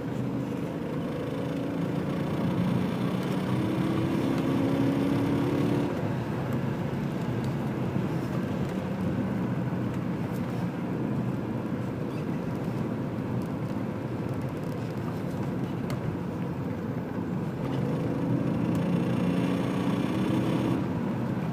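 Cabin sound of a 1995 BMW 540i/6 (E34) driving at about 4000 rpm: a steady drone of engine and road noise, with a pitched hum that swells and rises slightly twice.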